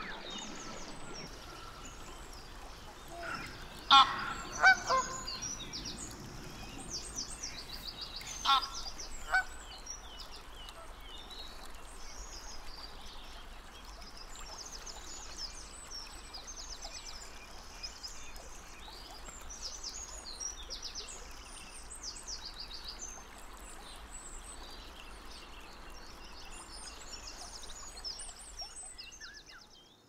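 Geese honking a few times, about four seconds in and again around eight to nine seconds in, over many short, high chirping calls of small birds.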